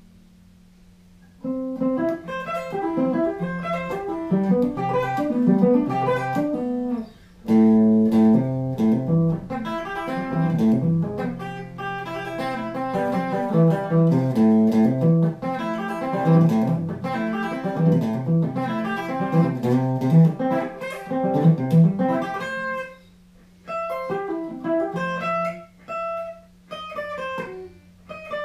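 Hardluck Kings Spider electric guitar being played on its original stock pickups, with riffs and fast lead runs. It starts after a short silence and has a few brief breaks between phrases.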